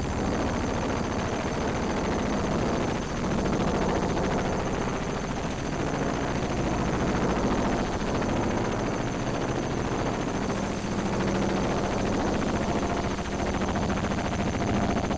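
Battery-powered synthesizer improvisation: a dense, rough, rapidly pulsing noisy texture with a few faint held tones and a steady high whine over it, without pause.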